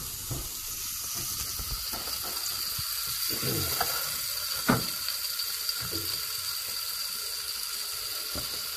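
Flour-dusted dorado pieces frying in oil in a stainless-steel pan: a steady sizzle with scattered small pops, one louder pop about halfway through.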